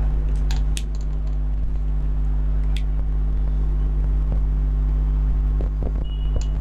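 A steady low hum runs throughout, with a few faint clicks from a marker on a whiteboard and a short squeak near the end.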